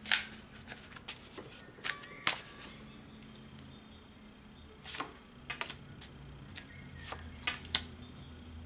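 Tarot cards being handled on a table: a scattering of sharp snaps and taps as the deck is cut and a card is drawn and laid down, the loudest right at the start.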